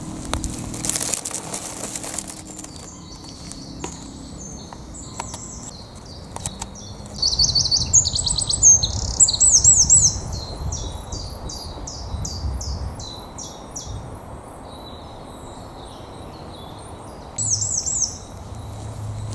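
Woodland birdsong: a songbird sings quick runs of high, descending notes, loudest about halfway through and again near the end, with other birds chirping softly. A short rustle comes about a second in.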